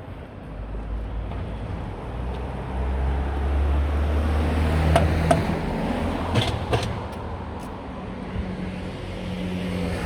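Road traffic: a motor vehicle passing close by, its low engine rumble swelling over a few seconds and then easing, with a few short clicks in the middle.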